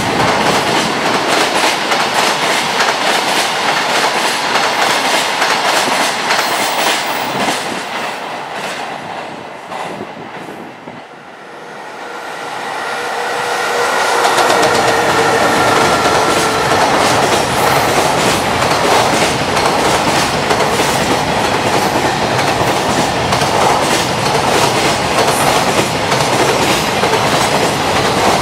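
Fast freight train wagons clattering over rail joints in a rapid clickety-clack that fades away about eight to eleven seconds in as the train's end passes. A second freight train then comes in with a rising whine, and its wagons clatter over the rail joints again from about fifteen seconds in.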